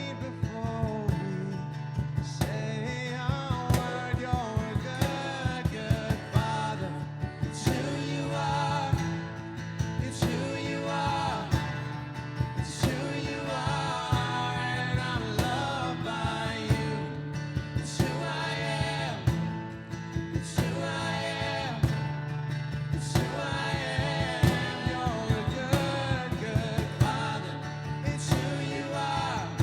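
A song with a singing voice over guitar and a steady beat.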